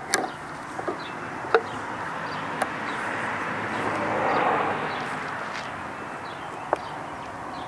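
A few sharp metal clicks as needle-nose pliers squeeze the spring clamp on a fuel hose and work the hose off a lawn-engine fuel pump. Behind them is a steady outdoor background noise that swells and fades about halfway through.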